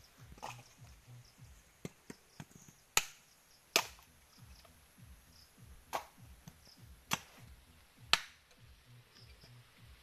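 Sharp, irregular whacks of a machete blade striking husked coconuts as they are split for copra, about eight strikes in all. The loudest come about three and four seconds in and again near eight seconds.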